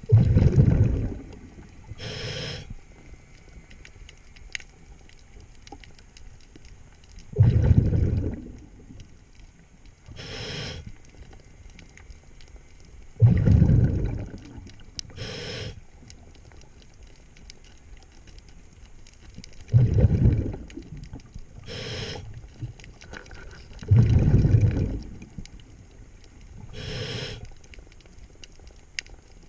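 Scuba diver breathing through a regulator underwater: five breaths about six seconds apart, each a loud, low bubbling exhale followed a couple of seconds later by a shorter hissing inhale.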